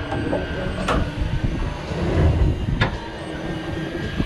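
Low, steady rumble of a fishing boat's engine, with two sharp knocks, one about a second in and another near three seconds in.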